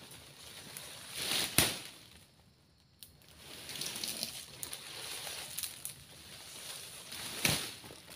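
Oil palm fronds and undergrowth rustling as they are dragged and handled with a long harvesting pole, with two loud swishing thumps, about a second and a half in and near the end.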